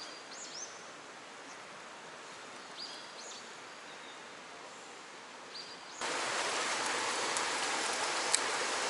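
Stream water rushing steadily past the rocks, with a few faint bird chirps in the first half. About six seconds in the water suddenly gets much louder, and there is a single sharp tick near the end.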